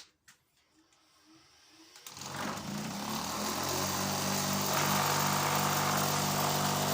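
Electric bench grinder switched on: quiet for about two seconds, then the motor spins up over about a second and runs steadily with a hum and whirr.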